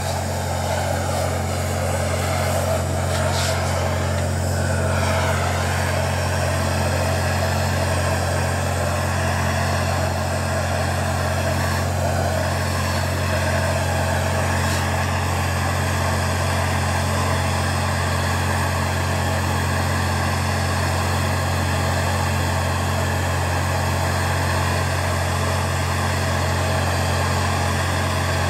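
Hand-held propane torch burning steadily against the steel neck of a semi-truck intercooler, a continuous hiss over a low steady hum.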